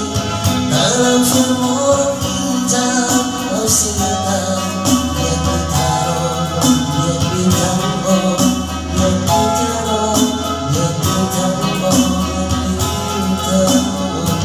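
A man singing into a microphone over an electronic keyboard playing chords, with a steady percussion beat behind.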